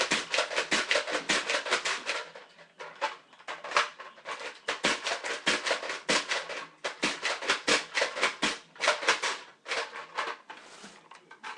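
Nerf Recon blaster being slide-primed and fired over and over as fast as possible: a rapid clatter of hard plastic clacks, several a second, in runs broken by a short lull about two seconds in and another near the end.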